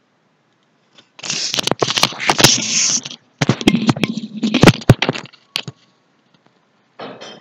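Loud crackling, rustling noise with sharp clicks through it, in two bursts of about two seconds each, then a short burst near the end.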